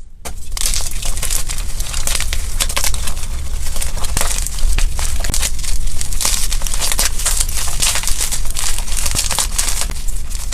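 Blocks of dyed gym chalk being crushed, a continuous dense crunching and crackling of many small snaps.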